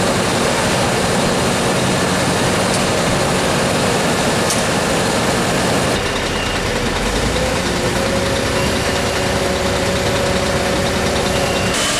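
Fire engines' diesel engines idling at a fire scene, a steady heavy hum. After a cut about halfway through, a thin steady whine sits over the engine sound.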